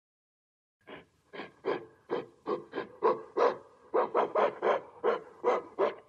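Gorilla giving a rapid run of short, breathy panting calls, about three a second, starting about a second in.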